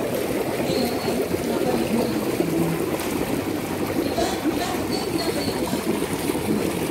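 Water from a row of small spouts on the pool's edge pouring and splashing steadily into a swimming pool.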